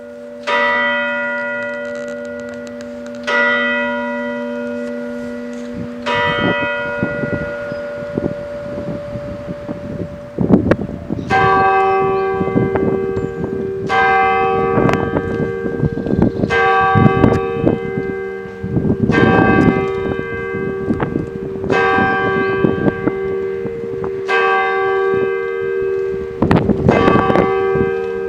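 Church bells ringing the noon peal. At first the strokes come about three seconds apart; from about ten seconds in, more bells join and the strokes come about once a second, overlapping in a full, continuous peal.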